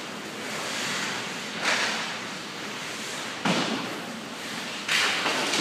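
Ice hockey play in an arena: a steady scrape and hiss of skates on the ice, broken by three sudden slams or thuds, about a second and a half in, about three and a half seconds in, and near the end, of the kind made by the puck or players hitting the boards.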